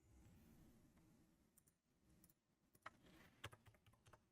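Near silence with a few faint, sharp computer clicks near the end, from keys or a mouse being worked during CAD entry.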